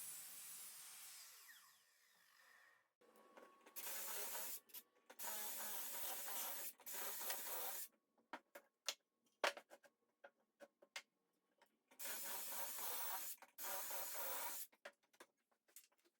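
Woodworking on pine: several stretches of rasping tool noise about a second each, starting and stopping abruptly, with scattered sharp clicks and knocks between them.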